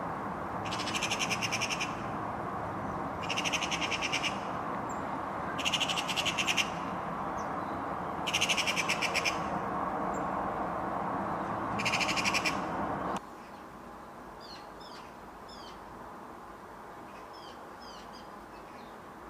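Eurasian magpie chattering: five rattling bursts, each about a second long, every two to three seconds, over a steady background hum. About two-thirds of the way through, the sound cuts abruptly to a quieter background with brief, high, falling chirps.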